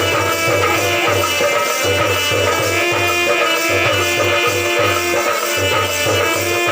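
Folk music with a steady low drum beat, a shaker or rattle, and held melodic tones over it.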